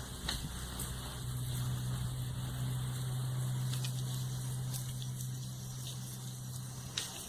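A low, steady motor hum that swells about a second in and eases off near the end, with a few faint clicks.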